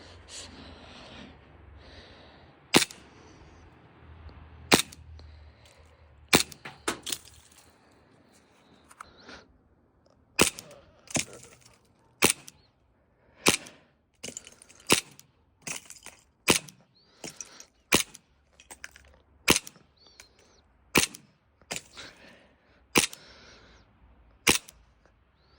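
Green gas airsoft 1911 pistol being fired shot by shot, about twenty sharp cracks at an uneven pace, a few in quick succession and then roughly one a second.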